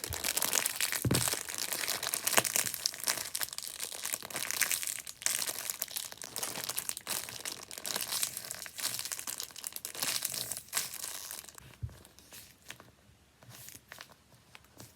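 Handmade paper squishy being squeezed and handled, its paper crinkling in dense, rapid crackles that thin to a few faint crackles about twelve seconds in.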